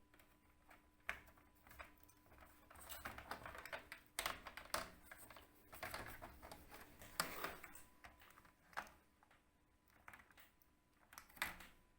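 Faint clicks and scraping of a screwdriver and hands on the screws and plastic back cover of an Acer laptop as the cover is taken off. The sounds come in scattered bursts, with sharper clicks about a second in and near the end.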